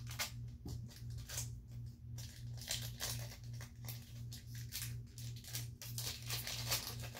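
Pokémon booster pack and cards being handled: a steady run of small crinkles, rustles and clicks from the foil wrapper and the cards, over a steady low hum.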